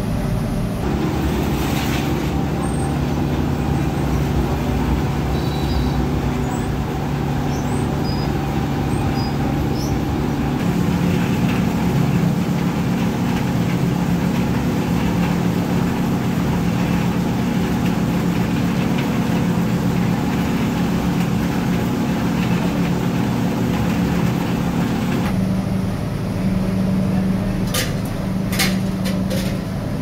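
Steady low mechanical drone of factory machinery, its tone changing abruptly about 11 and 25 seconds in, with a few sharp clicks near the end.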